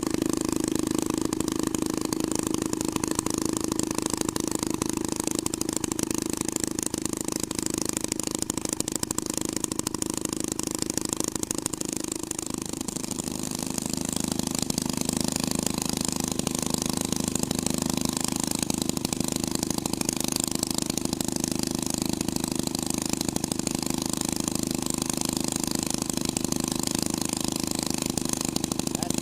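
Twin-engine hot rod running steadily. About halfway through, the engine note dips and wavers briefly, then steadies again.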